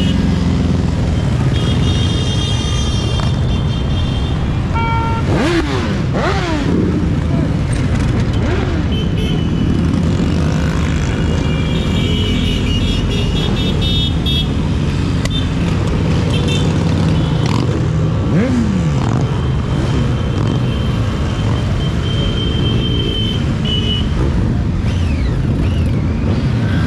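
A procession of motorcycles, cruisers, sport bikes and scooters, riding past one after another with their engines running in a steady, dense rumble. Engine pitch rises and falls as individual bikes rev and pass, and horns toot several times.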